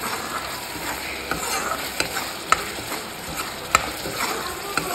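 Spice masala sizzling in a black kadai as a wooden spatula stirs it, with a few sharp knocks of the spatula against the pan, the loudest about two and a half and almost four seconds in.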